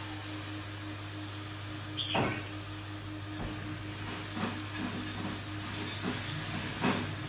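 Steady hiss with a low hum under it, from a running aquarium with bubbling water. A few brief sharper sounds break in, the loudest about two seconds in with a quick falling pitch.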